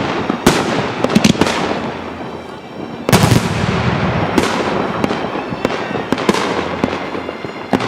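Fireworks going off: a run of sharp bangs and crackling, with the loudest cluster of bangs about three seconds in and single reports following every half second or so.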